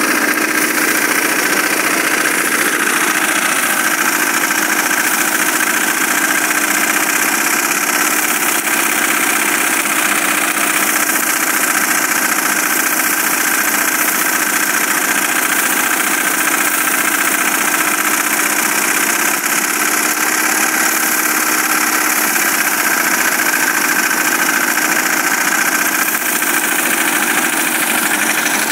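An engine running steadily at an even speed, with a constant hum and no change in pitch.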